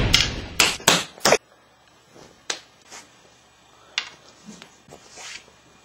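Light balls knocking against wooden pool sticks and bouncing on a table: four sharp knocks in the first second and a half, then scattered fainter taps.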